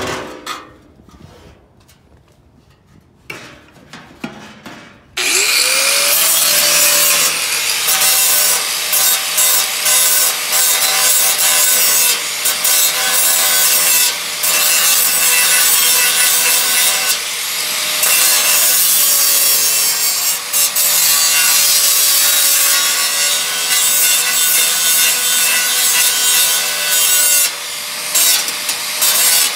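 A power tool spins up about five seconds in with a rising whine, then runs continuously as it cuts or grinds into the sheet-metal floor pan. It gives a steady whine over a harsh rasp, with a few short let-offs.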